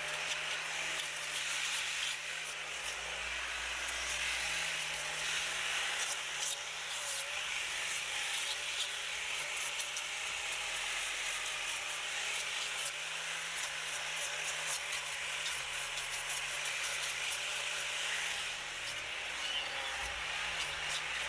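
Electric angle grinder running steadily, its spinning disc rubbing and sanding over carved pine wood. The motor's hum holds nearly level under a continuous abrasive hiss.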